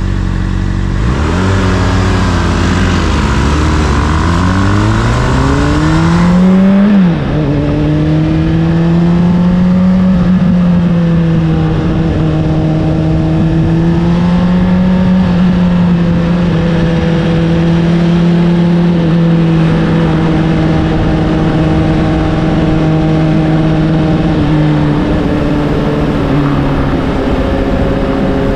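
Honda CBR600RR inline-four with an Akrapovic exhaust, heard on the move. It pulls up through the revs for about six seconds, then the pitch drops sharply as it shifts gear. After that it holds a steady cruise, the revs easing a little near the end.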